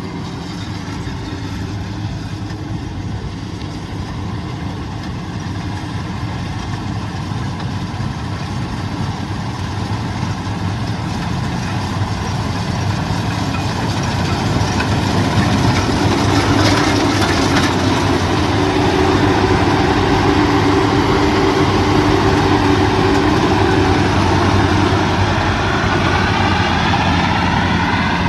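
Combine harvester's diesel engine running steadily, growing louder about halfway through and staying loud.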